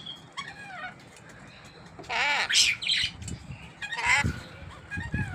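Rainbow lorikeet calling: soft, gliding chirps at first, then several loud, harsh squawks from about two seconds in.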